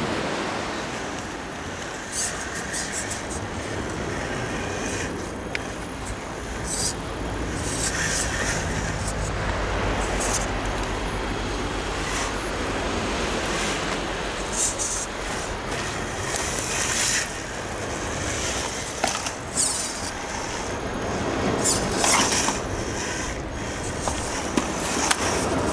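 Radio-controlled rock crawler driving over rocks: its motor runs while the tyres and chassis scrape and knock against stone, in many short clicks and scuffs, over a steady hiss.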